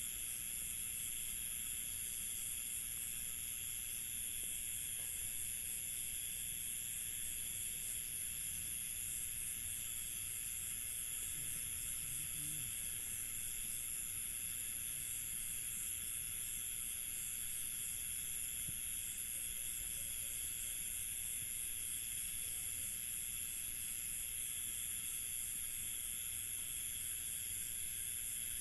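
Crickets chirping in a continuous high-pitched chorus of rapid pulsing trills, several species or layers at different pitches, in a rural night ambience.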